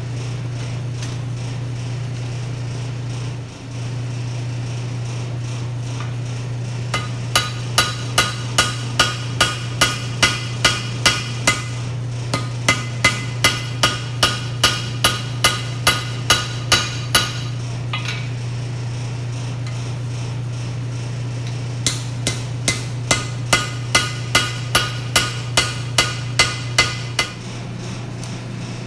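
Hand hammer forging a hot 5160 steel knife blank on an anvil: three runs of evenly paced ringing blows, about two to three a second, with pauses between them. Under them runs a steady low hum from the coal forge's air blower.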